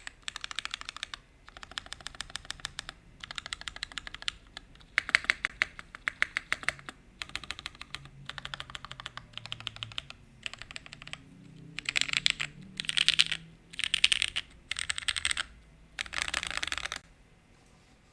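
Typing on a UTD 356mini custom mechanical keyboard with lubed and filmed Gateron Blizzard linear switches and DCS keycaps, in an aluminium case on a gummy O-ring mount. Runs of rapid keystrokes, each a second or two long, with short pauses between them; the runs get louder in the last third.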